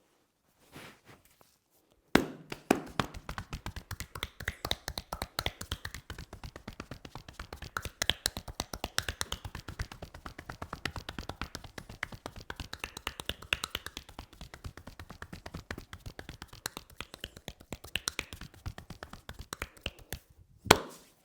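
Barber's hands tapping and slapping rapidly on a head during a head massage: a fast, even run of sharp slaps, several a second. It starts about two seconds in and stops just before the end with one louder slap.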